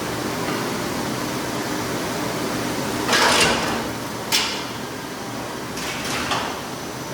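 Automatic ice-cutting bandsaw running with a steady hum. About three seconds in comes a short, loud scraping burst, then a sharp knock, and a second, weaker scrape and knock around six seconds.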